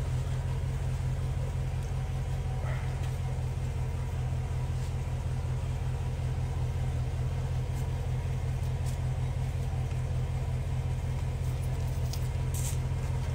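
A steady low rumble, like a vehicle engine idling, with a couple of faint clicks near the end.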